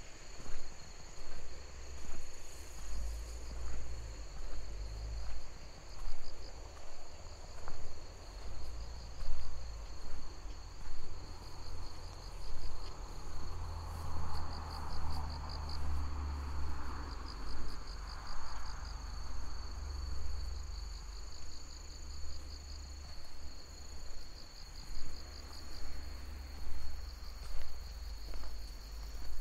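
Night chorus of crickets and other insects trilling steadily, one of them in pulsed bursts. Footsteps thud along at an even walking pace, a little under two steps a second. A soft hiss swells and fades midway.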